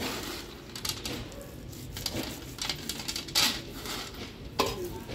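Metal kitchen vessels and utensils clinking and knocking, with sharp knocks about once a second.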